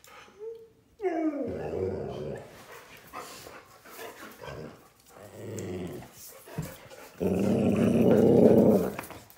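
Golden retriever vocalizing with impatience to go out: a brief whine, then drawn-out growly grumbles. The first falls in pitch, and the last is the longest and loudest, near the end.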